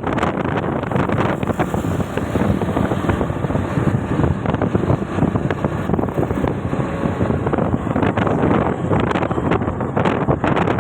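Wind buffeting the microphone over the steady rumble of a moving train, loud and continuous.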